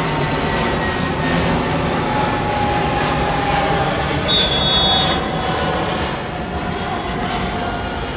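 Steady crowd noise at a game, with a short whistle blast about four seconds in.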